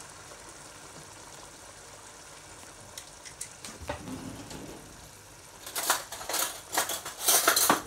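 Curry masala with milk just added, sizzling and bubbling quietly in a large pot on the stove as a soft steady hiss. A few light clicks come a few seconds in, then a run of louder kitchen clatters and scrapes over the last two seconds.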